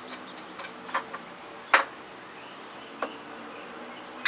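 Scattered sharp clicks and knocks of metal hold-down clamp hardware being handled and loosened, the loudest about two seconds in.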